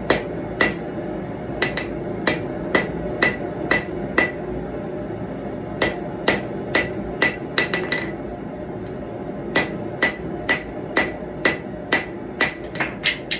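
Hand hammer striking a red-hot steel knife blade on an anvil, forging it. The blows come about two a second in runs with short pauses, and each strike rings.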